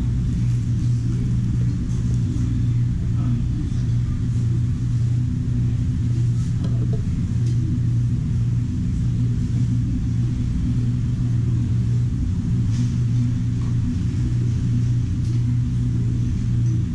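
A steady low mechanical hum, like a motor or fan running, with a few faint clicks over it.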